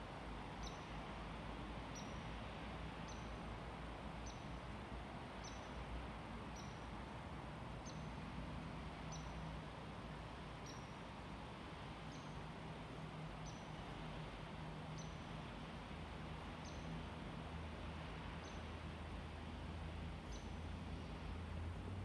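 A small animal's short, high chirp, repeated about once every second or so, over a steady faint hiss.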